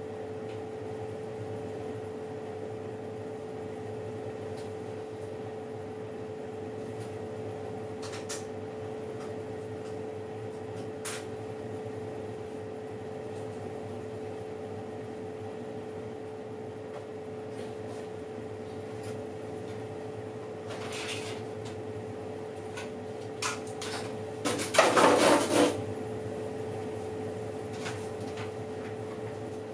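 Oven running with a steady hum, with a few faint ticks. Near the end, a brief clatter of knocks is the loudest sound.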